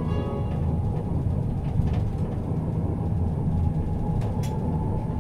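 Alstom Citadis Compact tram running along the track, heard from on board: a steady low rumble of wheels on rail and running gear. A few brief sharp clicks come around two and four seconds in, and a faint steady whine sets in from about three seconds.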